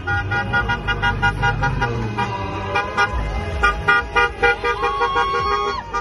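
Car horns honking from a convoy of passing cars: many short, repeated beeps from several horns overlapping, with one note held for about a second near the end.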